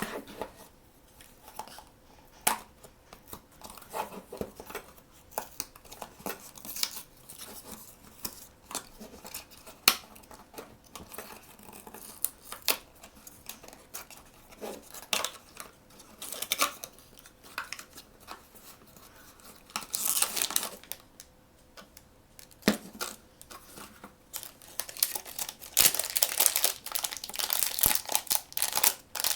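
Blind-box packaging being handled, torn open and crinkled by hand: scattered taps and clicks with short rustles, a burst of tearing about twenty seconds in, and a long stretch of dense crinkling near the end.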